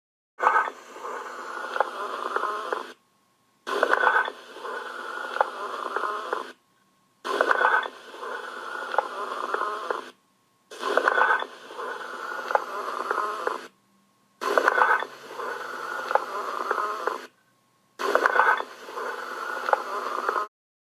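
Recorded lung sounds heard through a stethoscope: a breath-sound clip played six times over, each pass about three seconds long with a sharp start and scattered short clicks, separated by brief silent gaps.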